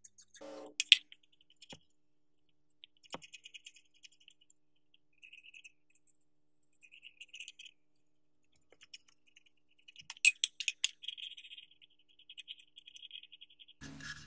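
A toothbrush and a thin metal pick scrubbing and scraping blistered, peeling paint off the metal housing of a vintage hand-cranked pencil sharpener, in short scratchy strokes. A few sharp clicks of the tool against the metal come about a second in and again about ten seconds in.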